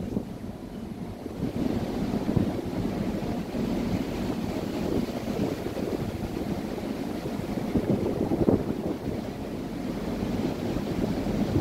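Strong wind over a rough sea, rushing and buffeting the microphone, swelling in gusts now and then.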